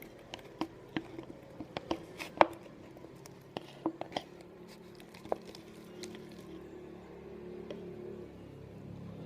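Homemade slime being worked and squished by hand, with a run of sharp, irregular sticky clicks and pops over the first five seconds or so, the loudest about two and a half seconds in.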